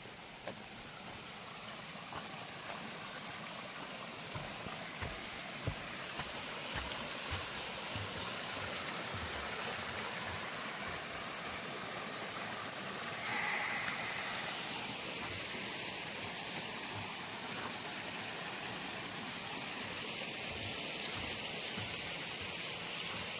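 Steady rushing of water, growing gradually louder, with soft footfalls on the trail underneath and a brief high tone about halfway through.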